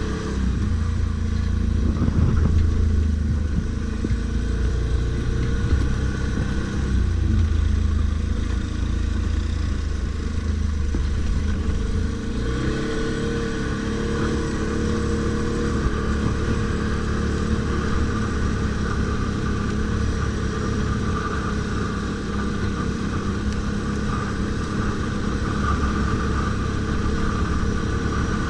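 ATV engine running continuously as the quad is ridden, its note shifting about twelve seconds in.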